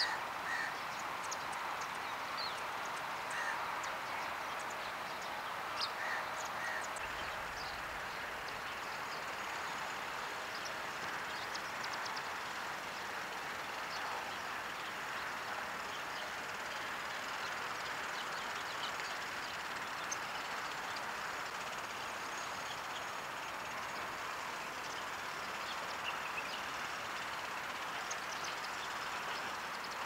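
Short, high chirps and ticks from Indian silverbills (white-throated munias) calling as they forage in a flock. The calls are scattered, with most in the first few seconds and a few more near the end, over a steady background hiss.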